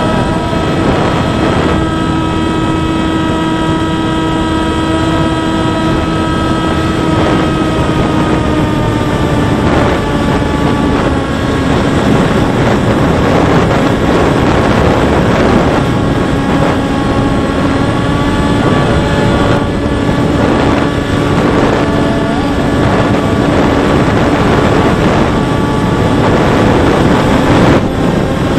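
Volantex Ranger EX 757-3 RC plane's brushless outrunner motor and propeller droning steadily in flight, recorded on board, with heavy wind rush on the microphone. The pitch sinks a little about eight to ten seconds in, then wavers slightly.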